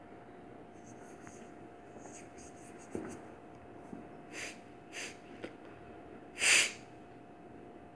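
A cat sniffing closely at a windowsill: several short, airy sniffs, then one louder snort near the end. A faint steady hum runs underneath.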